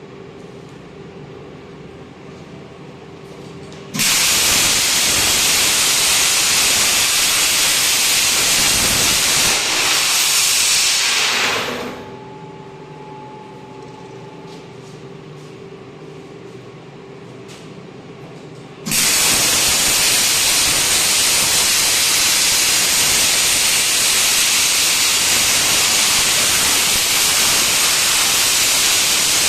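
CNC plasma cutter's torch hissing loudly while it cuts: the hiss starts suddenly about four seconds in, dies away around twelve seconds, and starts again suddenly at about nineteen seconds. Between cuts there is a quieter steady machine hum with a faint whine.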